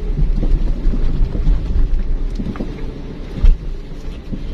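Low, continuous rumble of a car's tyres and suspension on a rough, rutted dirt track, heard inside the cabin, with irregular knocks and one sharp loud knock about three and a half seconds in.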